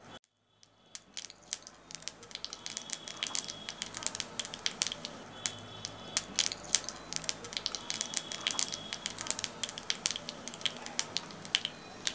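Tempering (phodni) crackling in a small pan of hot ghee on a gas burner: spices sizzling with a dense, irregular run of sharp pops, starting about a second in.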